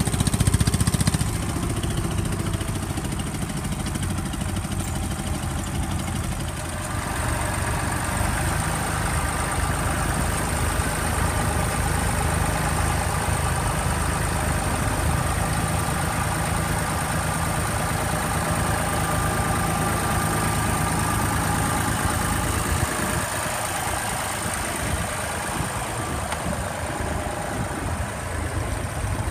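Vintage tractor engines, among them a Massey Ferguson 35, running steadily while pulling mounted plows through soil. The engine sound changes about a second in, again about seven seconds in, and a few seconds before the end, as different tractors come near.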